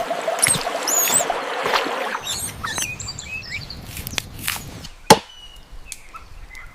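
Small birds chirping with quick, twittering calls, among scattered clicks and knocks; one sharp knock, like a chop, about five seconds in.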